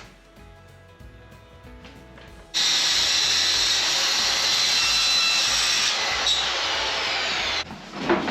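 Power drill driving a screw into a metal ceiling panel, starting suddenly a little over two seconds in and running steadily for about five seconds before cutting off. Soft background music plays before it.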